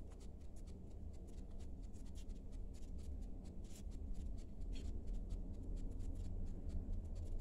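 Soft rustling and light taps of hands laying French fries onto a taco tortilla and folding its edges, over a steady low hum.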